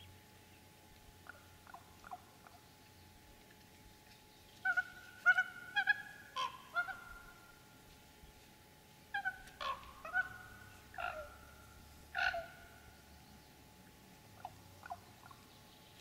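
Common raven calling from a perch: a run of short throaty calls, some sliding down in pitch. They come in two louder bunches, about five seconds in and again around ten seconds, with a few fainter calls before and after.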